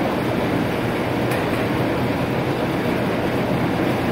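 Steady roar of foundry machinery with a low hum underneath, even in level throughout.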